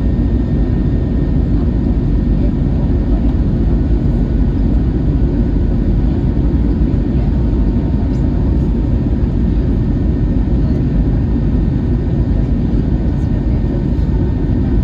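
Steady cabin noise inside an Airbus A321neo: a loud, even rumble of engines and airflow with a faint steady whine above it.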